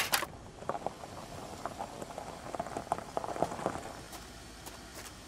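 Irregular crunching and crackling of gravel on a drive as a car rolls up and someone walks over to it.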